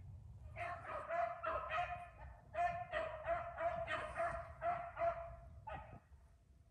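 Beagles baying on a rabbit's track: a pack in full cry, with overlapping, repeated bays about three a second that fade away near the end.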